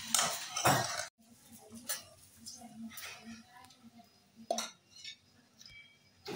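A steel spoon clanking and scraping against a metal cooking pot while stirring thick curry, loudest in the first second, followed by a few lighter, separate clinks.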